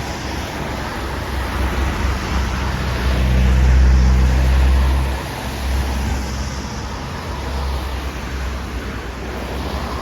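Steady road-traffic noise with a vehicle engine rumble that swells and fades about three to five seconds in, as a car passes.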